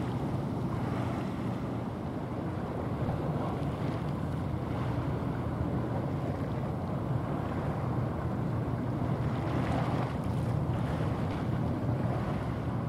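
Steady low hum of a passing cargo ship mixed with water washing along its hull, under wind noise on the microphone.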